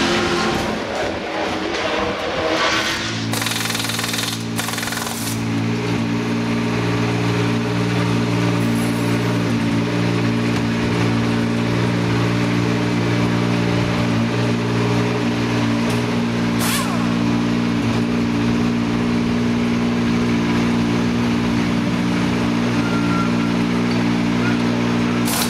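Jaguar XJR-16's 3-litre twin-turbo V6 race engine idling during warm-up; the engine note changes in the first few seconds and from about three seconds in settles into a steady, even idle that holds to the end.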